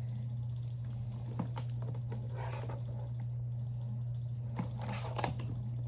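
Light clicks and taps from handling a plastic Lasko table fan, over a steady low hum.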